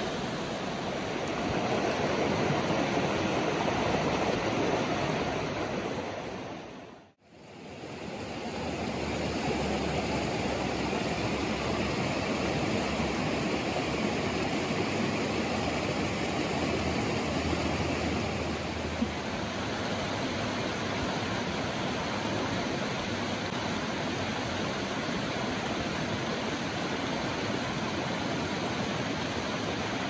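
Shallow rocky stream rushing steadily over stones. The sound dips out briefly about seven seconds in, then returns.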